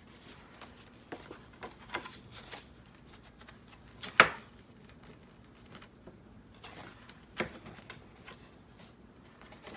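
Paper junk mail (mailers and envelopes) being handled and sorted: scattered light rustles and taps as pieces are picked up and laid down, with one sharper paper slap about four seconds in.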